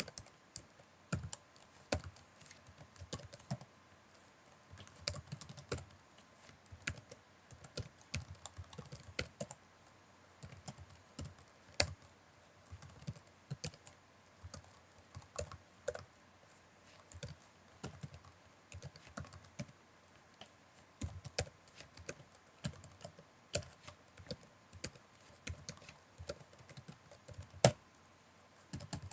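Typing on a computer keyboard: irregular runs of key clicks with short pauses between them, and a few harder single strokes, one about twelve seconds in and the loudest near the end.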